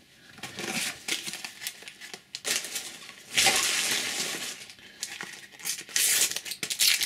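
A paper sticker packet crinkled and torn open, in several rustling bursts; the longest lasts about a second, a little over three seconds in.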